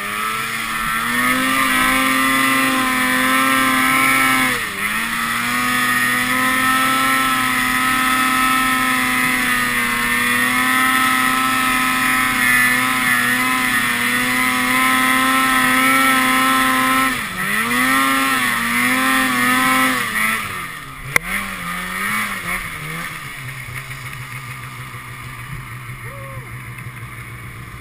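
Polaris snowmobile engine running at steady high revs while climbing through deep snow, with a brief dip about five seconds in. Near the end it revs up and down a few times, a sharp click sounds, and it drops to a quieter idle.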